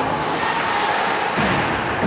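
Ice hockey arena noise: a steady held tone over a constant background din, broken about one and a half seconds in by a sharp knock, after which a lower tone begins.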